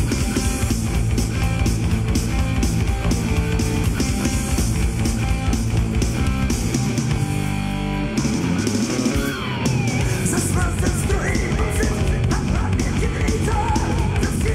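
Loud rock music with a steady driving beat, thinning briefly about eight seconds in.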